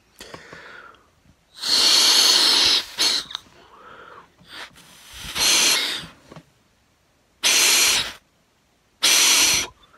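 A person blowing by mouth into the air ports of an Eaton A5000 shift slave valve, breath hissing through its passages in four bursts of about a second each. He is tracing which ports are connected inside.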